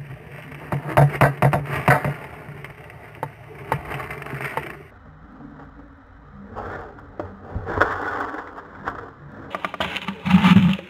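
Irregular scraping and rustling in bunches of sharp clicks, with a louder knock near the end.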